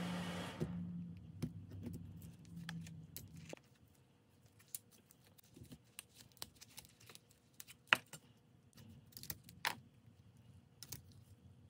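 Thin rusty steel laminations of a push-pull output transformer clicking and clinking as they are pulled from the core and dropped onto a pile. There are scattered sharp ticks, with one louder click about eight seconds in. A low steady hum runs under the first few seconds and then stops.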